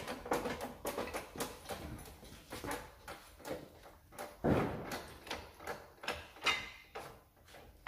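Scattered clicks and metal knocks from an engine hanging on chains from a workshop engine crane as it is lifted off its stand, with louder clunks about four and a half and six and a half seconds in.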